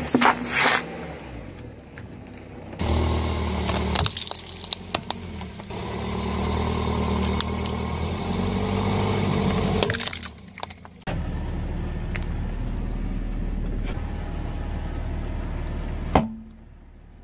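A car's engine running at low speed as its tyre rolls onto objects and crushes them, with sharp cracks, pops and crunches, the loudest right at the start. It comes in several short clips that begin and end abruptly.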